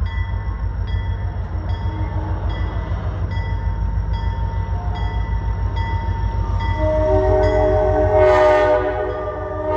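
Grade-crossing bell ringing in a steady repeating pattern over the deep rumble of an approaching EMD SD40-2W diesel locomotive. About seven seconds in, the locomotive's multi-note air horn starts to sound and swells loud near the end.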